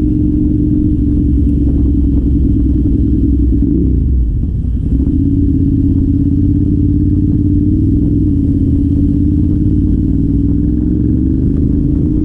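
Ducati Monster 696's air-cooled L-twin engine through a Termignoni exhaust, heard from the saddle while riding: a steady engine note that sags and goes quieter for a moment about four seconds in, then picks up again and climbs slowly in pitch toward the end.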